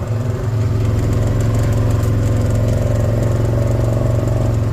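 A nearby engine running steadily at a low, even speed, a constant hum that picks up slightly at the start and then holds.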